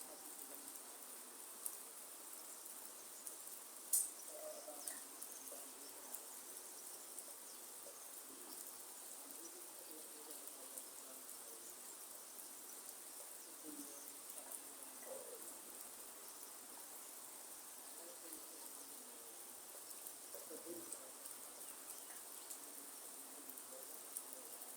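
Faint, steady hiss of light rain falling in a rainforest, with scattered soft, low animal calls and one sharp tap about four seconds in.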